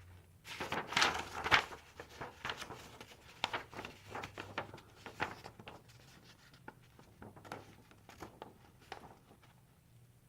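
A sheet of paper rustling and crinkling as it is folded by hand and its creases pressed flat. Irregular crackles, loudest about a second in, then quieter scattered rustles.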